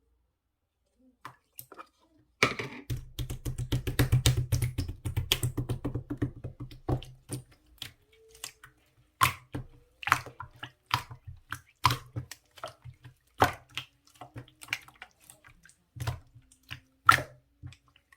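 Clear slime being kneaded and pressed by hand with round add-ins mixed into it, giving sticky clicks and wet pops. The clicks come thick and fast for a few seconds, then thin out to single louder pops every second or so.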